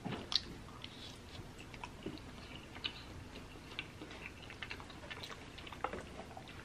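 Close-up chewing of soft, cheesy baked ziti: a run of small, wet mouth clicks. Near the end a wooden spoon scrapes and taps in the glass baking dish.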